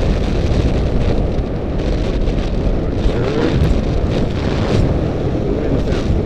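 Wind buffeting the camera microphone on a moving electric bike, a loud steady rumble.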